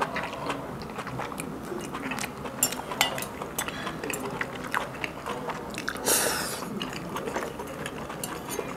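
Close-miked chewing and mouth sounds of someone eating crab meat dipped in a sauce of crab innards: many small wet clicks and smacks, with a brief louder rush of noise about six seconds in.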